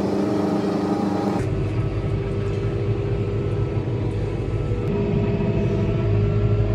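Farm telehandler's diesel engine running steadily while driving, heard from inside the cab. The engine note changes abruptly about a second and a half in.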